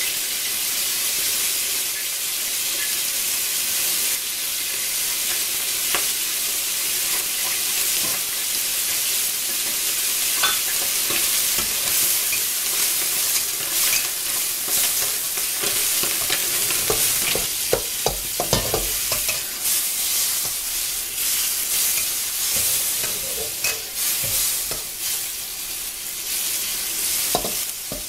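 Tomato and egg frying in a pan, a steady high sizzle with crackles. A spatula clacks and scrapes against the pan as it stirs, in a cluster of knocks about two-thirds of the way through and again near the end.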